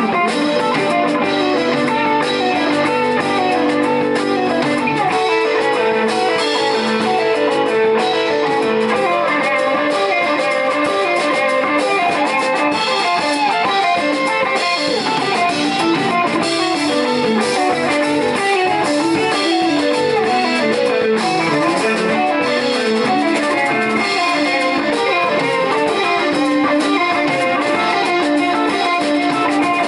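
Live band playing an instrumental passage: two electric guitars, one a semi-hollow body, over an electric bass guitar, with no singing.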